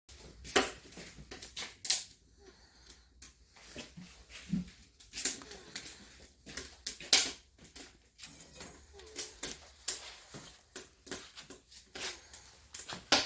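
Shiba Inu stirring before a walk: irregular clicks, taps and rustling, with a short low whimper about four and a half seconds in.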